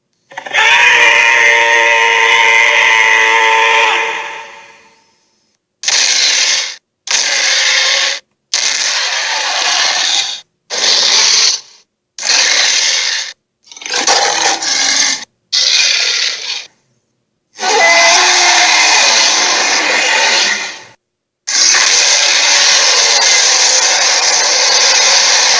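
A run of Albertosaurus roar and growl sound effects: about ten separate rasping calls with dead silence between them. A long roar opens and fades out, a string of short growls follows, and two long roars come near the end.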